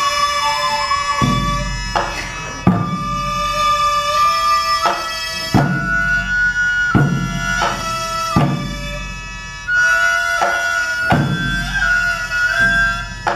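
Gagaku court music: a nasal double-reed hichiriki and a ryūteki flute hold and slide between long melody notes over a sustained wind chord, punctuated by sharp strikes of the hanging taiko drum, each with a low boom, roughly every one to one and a half seconds.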